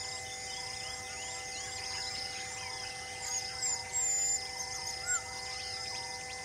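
Birds calling outdoors: a running chorus of short, rising chirps, with a few louder whistled calls about halfway through. Steady humming tones sit underneath.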